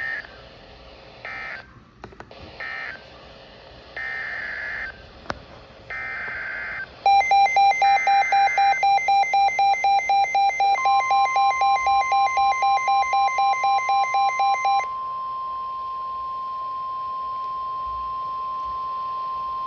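Emergency Alert System signalling from a weather alert receiver: three short bursts of screechy digital data, then three longer data bursts (the SAME header of the next warning). A rapid beeping alarm of about four beeps a second starts about seven seconds in and stops about halfway through, and a steady alert tone (the 1050 Hz NOAA Weather Radio warning tone) comes in just before it ends and holds to the end.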